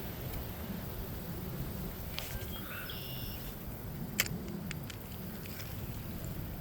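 Wind buffeting the microphone, a steady low rumble, with one sharp click about four seconds in.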